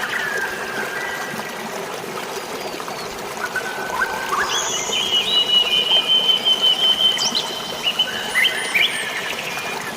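Steady rush of flowing water and drizzling rain under forest birdsong: scattered short chirps and whistles, with a long, steady, high whistled note held through the middle.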